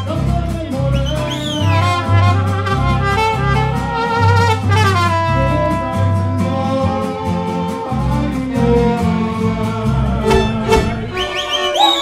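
Mariachi band playing live: bowed violins carry a melody with vibrato over strummed guitars and a pulsing guitarrón bass line.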